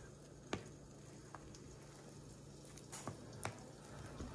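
Metal spoon scooping sticky, risen yeast dough from a plastic bowl: soft squishing with a handful of light clicks of the spoon, the sharpest about half a second in.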